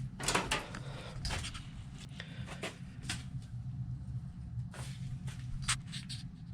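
Handling clicks and scrapes of plastic LED turn signal bulbs being fitted and twisted into their sockets, half a dozen separate sharp clicks over a low steady hum.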